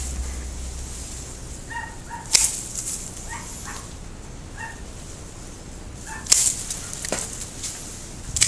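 Hand pruning shears snipping Japanese maple branches: a sharp snip about two seconds in, then more snips near the end. A few short high-pitched calls come in between.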